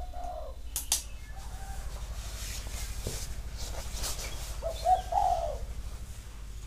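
A bird giving two short, low, arching calls about four and a half seconds apart, over a steady low pulsing hum.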